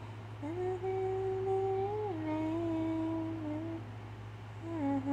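A woman humming a melody without words, holding long notes: one phrase that steps down in pitch about two seconds in, then a lower phrase starting near the end.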